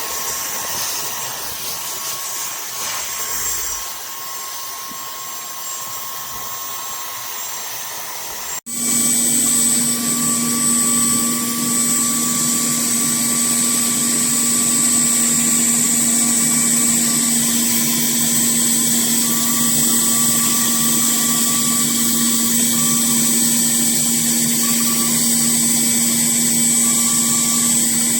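Cordless handheld vacuum cleaner's motor running steadily with a hissing rush of air. About nine seconds in the sound cuts out for an instant, then comes back louder with a steady whine.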